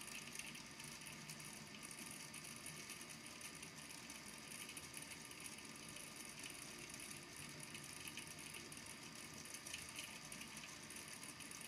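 Small balls in a volcano lamp's water tank tapping against the tank's base as they are pushed up and sink back: a faint, continuous rattle of many quick clicks.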